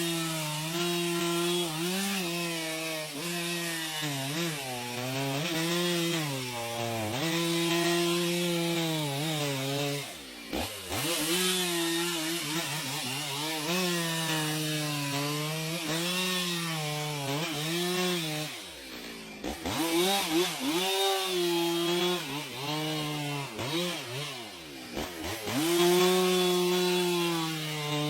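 Chainsaw cutting wood, its engine pitch sagging and recovering over and over as the chain loads up in the cut. The revs drop off briefly about ten seconds in and again near nineteen seconds, then pick back up.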